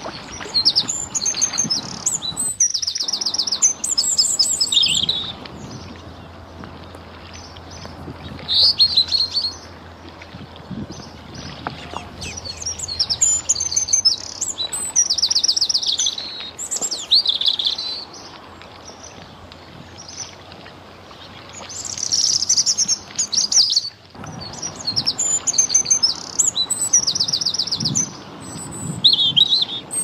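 A songbird singing in short, bright phrases, some ending in quick trills, repeated in bouts of a few seconds with pauses between, over a steady outdoor background noise.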